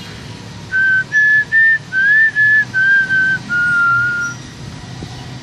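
A short whistled tune: about eight clear notes in quick succession, one gliding upward, the last held longest.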